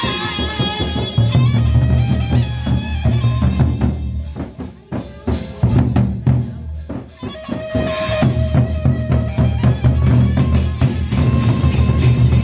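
Gendang belek ensemble playing: the large double-headed Sasak barrel drums are beaten in a dense rhythmic pattern of deep strokes with sharper strikes on top. The drumming thins out briefly about four seconds in and again about seven seconds in.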